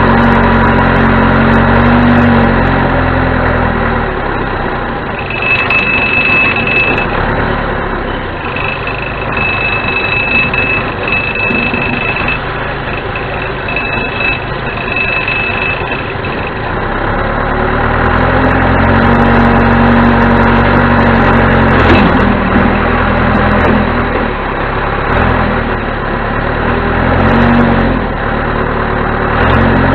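1987 John Deere 210C backhoe loader's four-cylinder diesel engine running as the machine works, its loudness dropping for a stretch in the middle and building again later on. During the quieter middle stretch a high steady tone sounds on and off several times.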